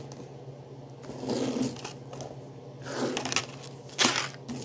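Small plastic slime tubs being handled and moved on a tabletop, with a sharp knock about four seconds in as one is set down. A steady low hum sits underneath.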